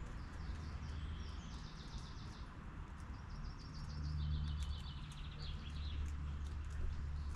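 A small garden songbird sings two rapid trills of repeated high notes, the first about a second in and a longer one from about three to six seconds in, over a steady low hum.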